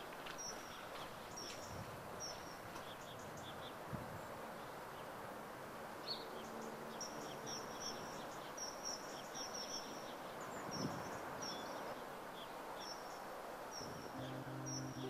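Outdoor ambience: small birds chirping, short high chirps repeating every second or so over a steady background hiss, with a couple of soft thumps. Low sustained tones come in near the end.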